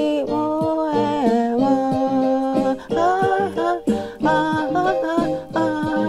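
A woman singing a wordless, hummed melody over her own keyboard accompaniment, the voice holding notes and sliding between them.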